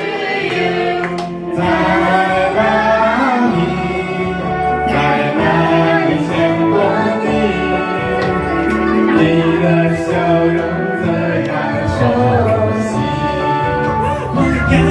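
A song with several voices singing over an instrumental backing.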